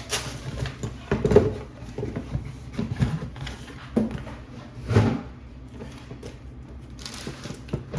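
Boxes and packaging being handled and set down: scattered knocks and rustles, the loudest about a second and a half in and again about five seconds in.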